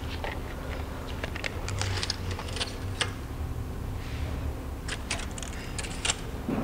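Ratchet wrench clicking in two runs of quick clicks, the first about 2–3 seconds long and the second shorter near the end, while tightening the nut on a pickup's front tie rod end. A low steady hum sits under it.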